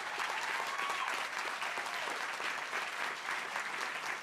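Audience applauding: dense, steady clapping that began just after the song's final guitar chord.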